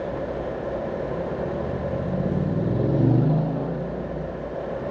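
Steady road noise inside a car, with a motorcycle engine swelling in as it passes close by between lanes. It is loudest about three seconds in, then fades.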